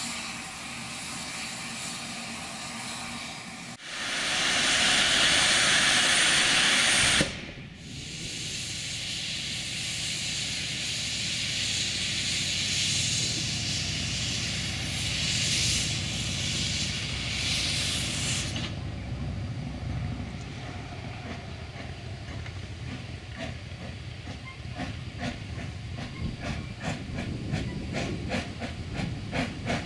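Narrow-gauge steam locomotive hissing steam, with a much louder blast of steam for about three seconds that cuts off suddenly. In the last third its exhaust chuffs set in, about two to three a second, as it starts to pull away.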